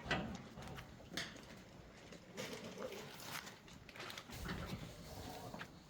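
Hanwoo cattle eating feed at the trough: scattered knocks and rustling in the feed.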